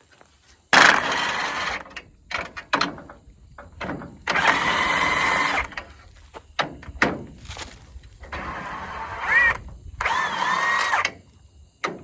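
Cordless drill or driver running in three short bursts of about a second each, working the bolts of the cutter-bar guards on a soybean head, with a few light metal clicks between the runs.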